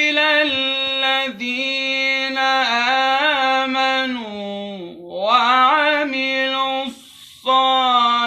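A man reciting the Quran in a melodic chanted style, with long held notes and ornamented pitch turns, a short breath about seven seconds in. The voice is dry, without added echo effects.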